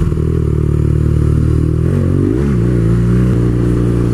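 Ducati 996 motorcycle's V-twin engine running under way. Its pitch dips and swings back up about two seconds in, then holds steady again.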